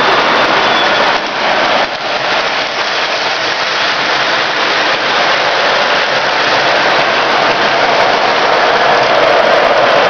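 Several electric model trains running at once on a large home layout: a steady, loud whir and rattle of motors and wheels on the track.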